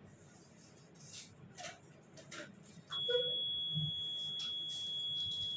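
Faint rustling and light clicks, then about three seconds in a loud, steady, high-pitched electronic beep starts abruptly and holds as one unbroken tone.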